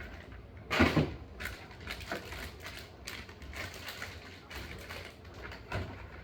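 Food packs being set back into a refrigerator: a loud thump about a second in, then lighter knocks and clicks of packages being placed on the shelves.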